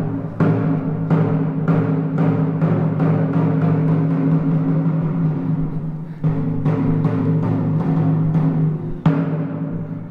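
Gong-like percussion struck over and over, a stroke about every half second or so, each one ringing into the next. There is a short lull just past the middle before the strokes pick up again.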